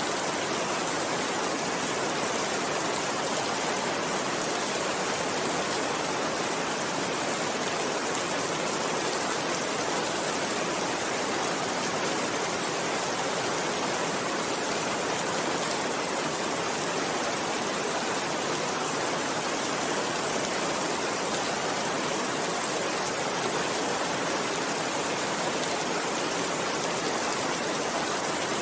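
Steady rainfall: an even, unbroken hiss of many raindrops with no distinct individual drips or thunder.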